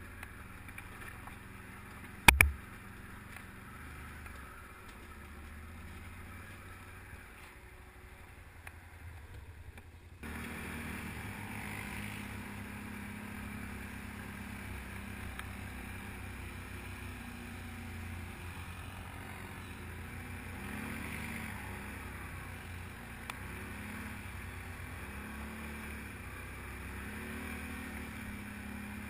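Can-Am ATV's V-twin engine running at low speed over rough ground, a low, muffled rumble with one sharp knock about two seconds in. About ten seconds in the sound cuts abruptly to a louder, steadier engine drone that rises and falls slightly.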